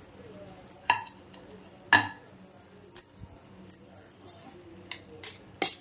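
Sharp metallic clinks, about seven spread unevenly, while fried onions are spread over rice in a steel cooking pot.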